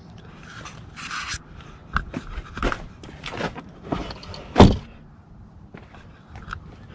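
A run of clicks, knocks and short scrapes from a newly installed towing mirror on a pickup being moved and folded by hand. The loudest is a sharp knock about four and a half seconds in.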